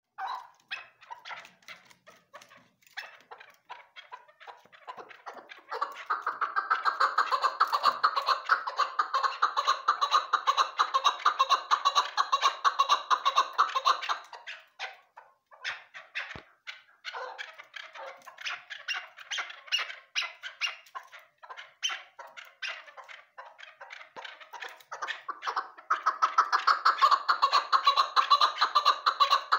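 Chukar partridge calling: a long rapid series of short notes, sparse at first, then a dense, loud run about six seconds in that breaks off near the middle, quieter pulsing, and another loud run building near the end.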